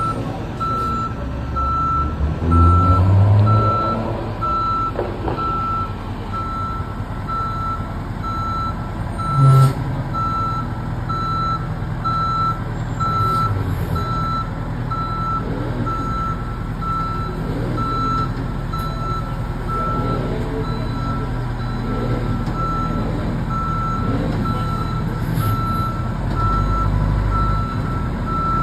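Fire department aerial ladder truck's reversing beeper sounding steadily about once a second as it backs up, over its diesel engine running. The engine surges a few seconds in, and there is a short loud low burst about ten seconds in.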